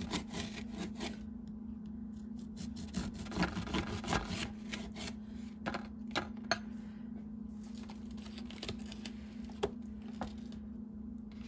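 Kitchen handling sounds: scattered clicks, taps and scrapes, busiest in the first half, over a steady low hum.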